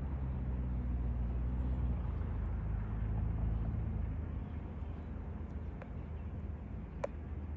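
Steady low outdoor rumble, with a low hum in the first two seconds and a couple of faint clicks near the end.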